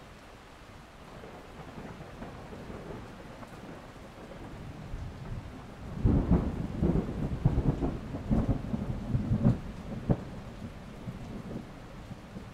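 Thunder over steady rain. A low rumble builds, then a loud peal breaks about halfway through, rolling in a run of rapid cracks for several seconds before fading back to a rumble.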